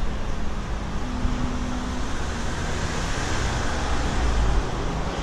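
Road traffic noise: a steady rumble of passing cars, growing louder in the low end about four seconds in.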